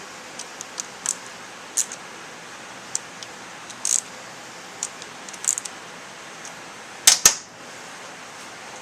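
Small metal tools and engine parts clicking and clinking during hands-on work on a small motorcycle engine, with two sharp clanks close together about seven seconds in.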